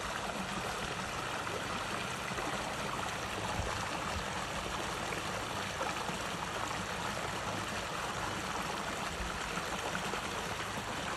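A stream of water running steadily, a constant, even rush of flowing water.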